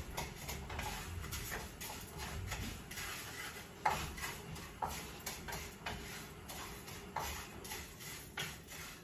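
Wooden spatula stirring and scraping raw rice grains in a dry frying pan, toasting the rice without oil, with irregular scrapes and light taps about once or twice a second and one sharper tick about four seconds in.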